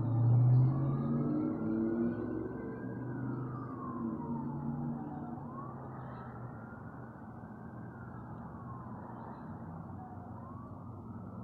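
Siren wailing, its pitch sliding slowly up and down over a few seconds and gradually fading. A louder low rumble sounds in the first second.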